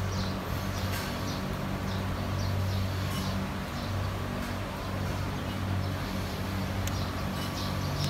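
Dairy barn ambience: a steady low hum with faint, scattered bird chirps over it.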